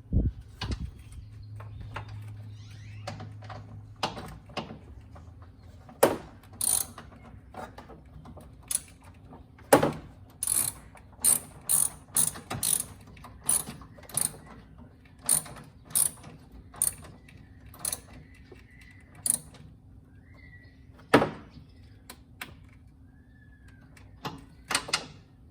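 A ratchet clicking as a hood-clamp bolt is tightened: a long run of sharp, irregular clicks, densest in the middle, over a low hum for the first few seconds.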